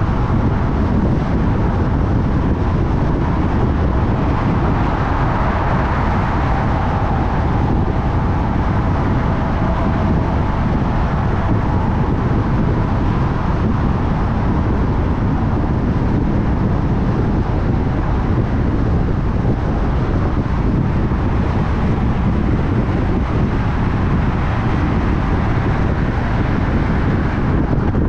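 Steady road noise of a car driving: a low rumble of tyres and engine with hiss above it. A faint whine swells and fades about five to eight seconds in.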